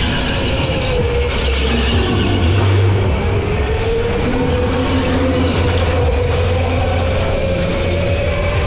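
Onboard sound of a go-kart driven at speed: a steady low rumble with a motor whine that dips and rises in pitch as the kart's speed changes through the corners.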